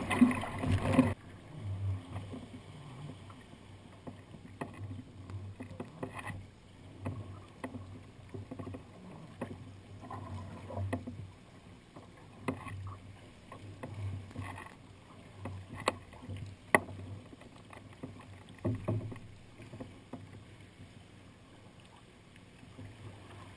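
Sea kayak in choppy water: for about the first second a loud wash of waves against the bow and wind. Then, on calm water, soft splashing and dripping of paddle strokes with scattered sharp clicks and small splashes.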